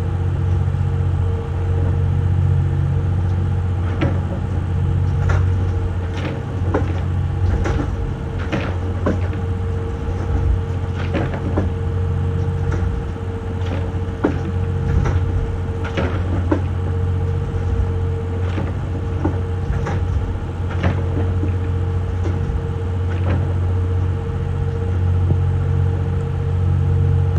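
A motor yacht's engines droning steadily under way, with frequent irregular knocks and thuds as the hull works through short steep waves.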